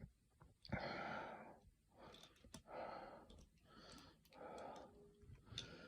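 A person breathing audibly close to the microphone, a soft breath about every second, with a few small handling clicks in between.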